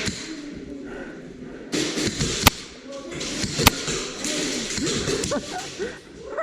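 Indistinct voices of airsoft players under rustling and scuffing movement, cut by two sharp loud cracks about a second apart.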